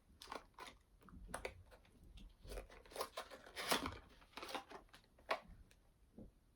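A small product box being opened by hand: irregular tearing, crinkling and clicking of its packaging.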